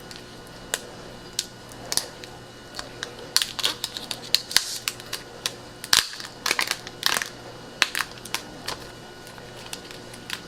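Thin protective plastic film being peeled and crumpled off a new phone, giving irregular crinkles and sharp snaps in short runs.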